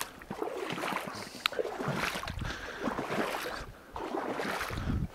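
Water sloshing and splashing in uneven strokes, with reeds swishing against clothing, from moving through a shallow reedy marsh. The sounds pause briefly a little before the end.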